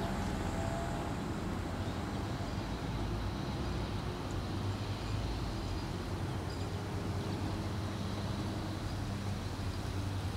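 Steady low engine hum, like a vehicle or machine running at idle, holding even throughout.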